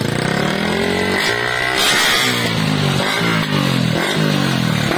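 Yamaha MT-15's single-cylinder four-stroke engine revved through an aftermarket Akrapovic slip-on exhaust and bend pipe. The pitch climbs and drops back several times in a row, one blip of the throttle after another.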